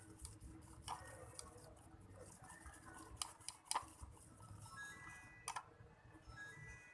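Faint scraping and a few sharp, scattered clicks as the slime mixture is stirred in its container, the loudest clicks a little over three and a half seconds in and again about five and a half seconds in.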